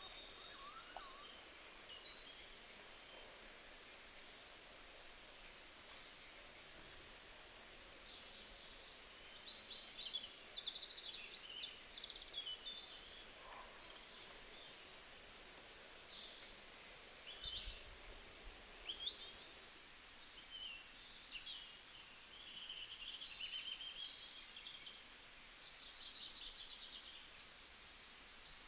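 Several small birds chirping and singing at once, short high calls and trills overlapping throughout, over a faint steady hiss.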